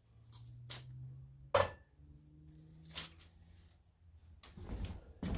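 Faint knocks and rustles of a pat of butter being unwrapped and set into a frying pan on an alcohol-burning camp stove, the sharpest knock about a second and a half in, over a faint low hum.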